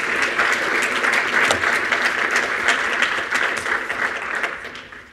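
An audience applauding the end of a talk, a steady patter of many clapping hands that dies away near the end.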